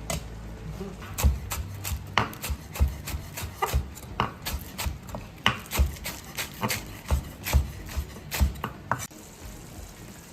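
Knife chopping food on a wooden cutting board: a run of sharp, uneven knocks about two a second that stop near the end.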